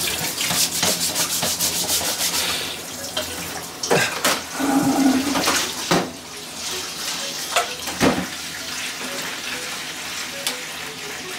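Water running and splashing into a kitchen sink for the first few seconds, then quieter, with a few sharp knocks of utensils or dishes being handled.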